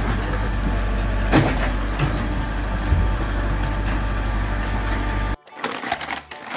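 JCB 3CX backhoe loader's diesel engine running steadily as the backhoe arm digs, with a couple of knocks. It cuts off suddenly near the end.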